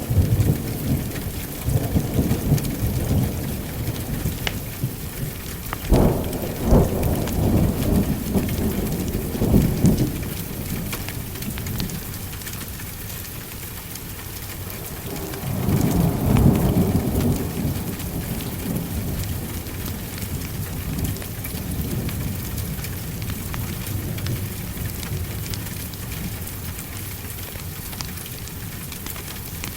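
Steady heavy rain with rolling thunder, the rumbles strongest through the first ten seconds and again in a swell around the middle.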